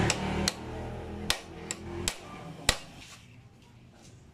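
About six sharp metal taps, unevenly spaced, with the strongest about two and a half seconds in: a hammer striking a metal rod held against the clutch centre nut of a motorcycle's centrifugal clutch to work it loose. A loud, low, steady sound fills the first half second and then stops.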